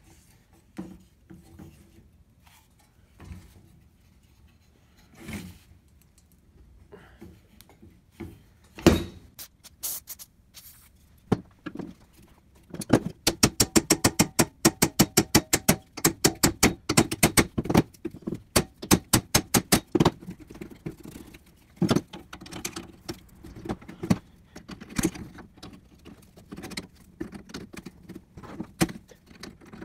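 Metal clicks, knocks and scrapes from working the rusted handle bolt, bracket and wing nut of an old crosscut saw. There is one loud knock about a third of the way in, then a fast run of metallic clicks, about three or four a second, for several seconds, and scattered clicks near the end as pliers work the nut.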